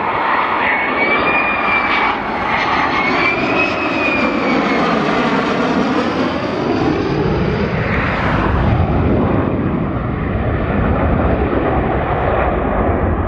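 F-35A's F135 turbofan jet engine as the fighter flies low past with its landing gear down on approach. Loud, continuous jet noise with a high wavering whine in the first few seconds, a sweeping, phasing sound as it passes, and a deeper rumble building from about two-thirds of the way through.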